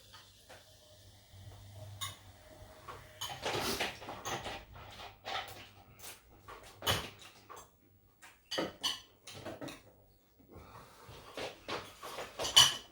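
Takeaway food containers and packaging being handled: scattered clicks, knocks and rustling, with a sharp knock near the end.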